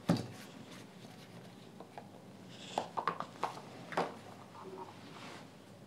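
Handling noise from the pried-open JBL GO 2 speaker: short clicks and light taps of its plastic housing and a flat metal pry tool, one sharp click right at the start and a cluster of clicks about three to four seconds in.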